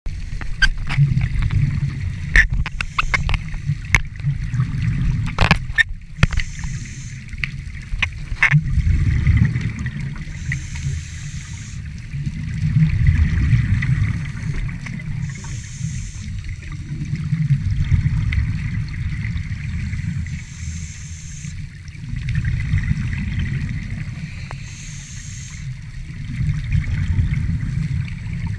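Underwater scuba breathing: short hissing breaths through a regulator about every five seconds, between swells of low, rumbling bubbles from the exhalations. A run of sharp clicks and knocks comes in the first eight seconds.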